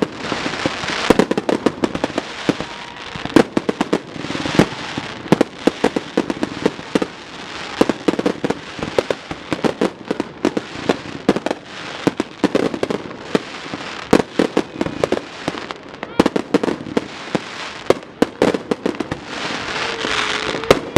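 Fireworks popping and crackling in rapid, irregular volleys of sharp cracks over a steady hiss.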